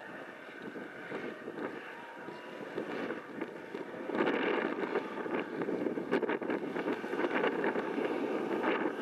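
ATV engine running hard as the quad ploughs through deep powder snow, getting louder about four seconds in as it comes nearer.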